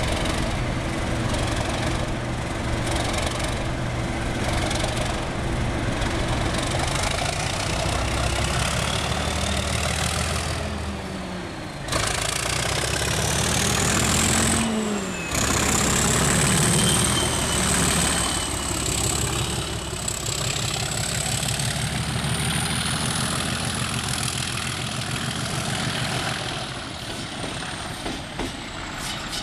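Class 37 diesel locomotive's English Electric V12 engine pulling away under power, with a rising turbocharger whistle that holds high as the locomotive passes close by.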